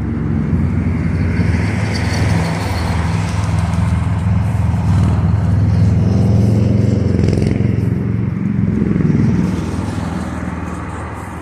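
A motor vehicle's engine passing close by. It grows louder over the first few seconds and fades away after about nine seconds.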